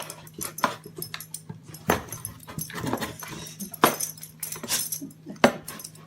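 A dog making short noises amid irregular sharp clicks and knocks, with a steady low hum underneath.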